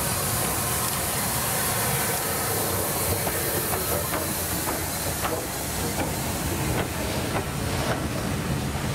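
Merchant Navy class 4-6-2 steam locomotive no. 35006 passing slowly, steam hissing steadily. From about three seconds in there are sharp clicks of its wheels over the rail joints.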